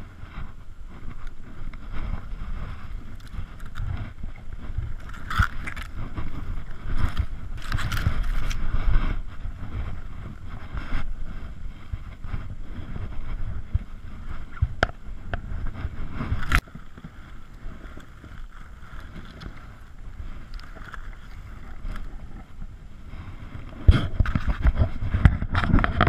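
Wind rumble and handling noise on a body-worn camera's microphone, with rustling and scraping of clothing, rifle sling and scrub as the hunter moves with a scoped rifle. A sharp click comes about two-thirds of the way through, and the rustling is loudest near the end.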